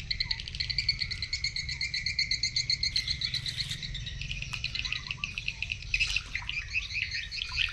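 A steady, fast high-pitched chirping trill of about eight pulses a second, its rhythm shifting about halfway through.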